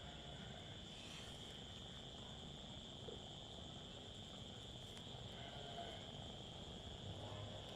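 Faint, steady chorus of insects: one continuous high-pitched trill that does not change, over a low background hiss.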